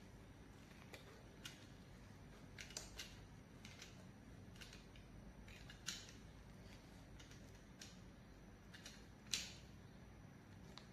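A blade cutting and prying a torn rubber handlebar grip off a BMX bar: faint scattered clicks and scrapes, the sharpest about six and nine seconds in.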